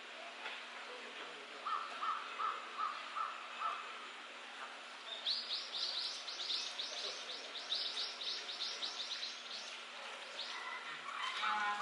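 Small birds singing: a run of about eight even, repeated notes, then a fast trill of high, sweeping notes lasting about four seconds. Near the end a harsher call with several pitches starts.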